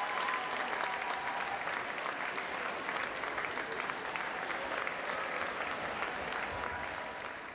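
Large audience applauding, a dense patter of many hands clapping that fades out toward the end.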